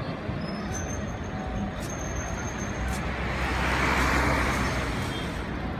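City street traffic: vehicle engines running and road noise, swelling louder about four seconds in, then easing off.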